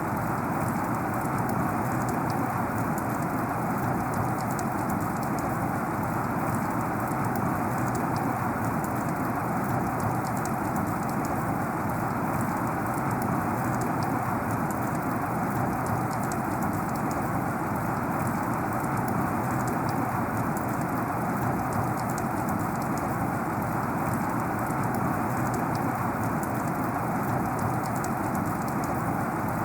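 Heavy rain falling steadily: a dense, even hiss with many fine drop ticks, unchanging throughout.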